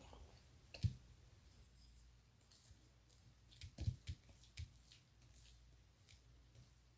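A few faint, short clicks and soft taps over quiet room tone: one about a second in, and a small cluster around four seconds in.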